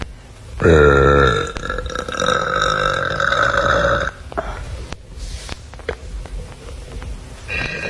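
A woman's loud, deliberate burp, drawn out over about three and a half seconds, starting about half a second in and loudest at its start. Another burp begins near the end.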